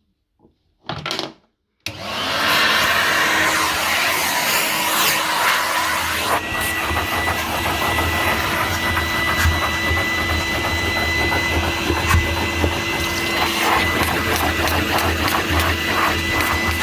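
1991 Numatic Henry canister vacuum cleaner switched on about two seconds in, its motor spinning up quickly to steady, loud running with the suction hiss. A short knock comes just before it starts, and a steady whistle joins about six seconds in.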